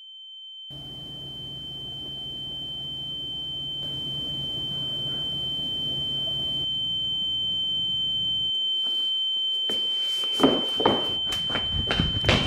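Steady high-pitched ringing tone that swells in slowly and then holds, over a low hum that stops about two thirds of the way through. Near the end comes a run of knocks and thuds.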